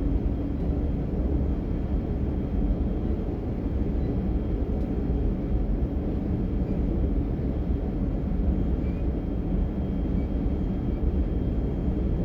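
Interior of a DB Class 425 electric multiple unit running along the line: a steady low rumble of wheels and running gear, with a faint steady high-pitched whine above it.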